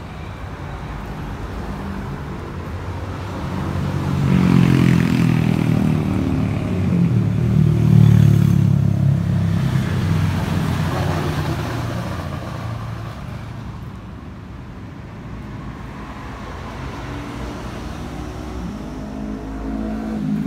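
A motor vehicle engine running, with a low rumble that grows louder about four seconds in and eases off after about twelve seconds.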